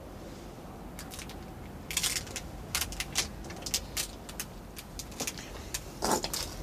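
A payphone receiver being handled and examined in a telephone booth: an irregular string of short clicks, taps and rustles over a faint low background hum.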